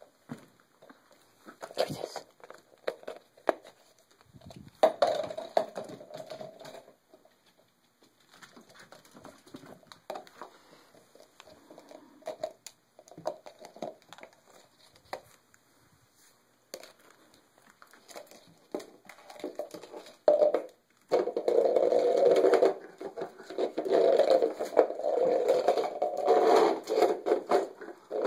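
A Brittany spaniel puppy nosing and shoving a plastic water bowl: scattered knocks and scuffs of the bowl on the rug, then, about three-quarters of the way through, a loud, rough, near-continuous scrape as the bowl is pushed across a concrete floor.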